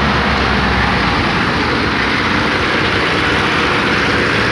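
Heavy road-construction machinery running steadily: a loud, even diesel engine noise with a low rumble.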